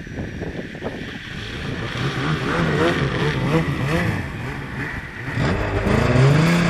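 Snowmobile engine revving under throttle, its pitch wavering up and down, then climbing about five and a half seconds in and holding high as the sled accelerates and gets louder.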